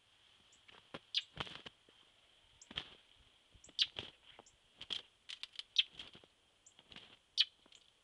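Boots crunching through fresh snow in uneven steps, about one a second.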